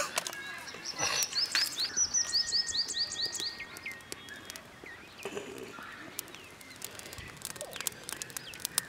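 A small bird singing a quick run of about eight repeated chirps for a couple of seconds, about a second in. Scattered sharp clicks and crackles run throughout, fitting the small twig fire burning.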